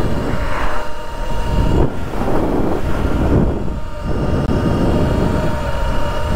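2023 Surron X electric dirt bike riding at speed: a steady electric-motor whine over heavy wind and road rumble.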